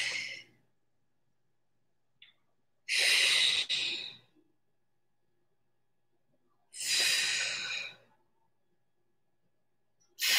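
A woman breathing hard through the mouth with exertion during resistance-band rows. There is one loud, noisy breath about every four seconds, with quiet in between.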